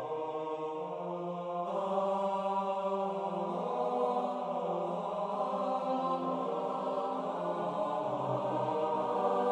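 Unaccompanied four-part (SATB) choir singing sustained chords of a Latin sacred setting; the sound fills out about two seconds in.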